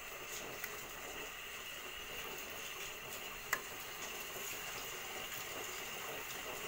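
Hot oil sizzling steadily around a Mangalore bun deep-frying in a pan, with one sharp click about three and a half seconds in.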